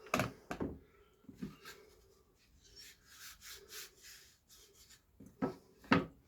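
Small wooden pieces being handled on a workbench: a few light knocks near the start and near the end, with wood rubbing or sliding in between.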